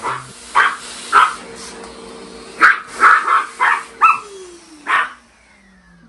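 Maltese dog barking about eight times at a running canister vacuum cleaner. The vacuum's steady motor hum and suction hiss stop near the end, the motor note falling as it winds down.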